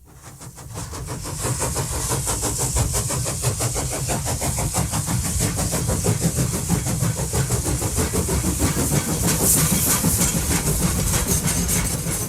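A train running, with a fast even rhythmic beat over a low rumble and hiss, fading in over the first second or so.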